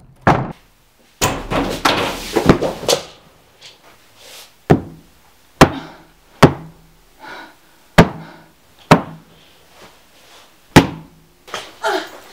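Repeated heavy bangs, about ten blows at uneven intervals of roughly a second, with fainter muffled sounds between them.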